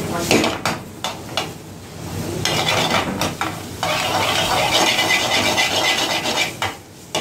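Metal ladle scraping and knocking against a metal wok as diced onion and capsicum are stir-fried over high heat. The vegetables sizzle steadily for a few seconds in the middle, between sharp ladle knocks near the start and end.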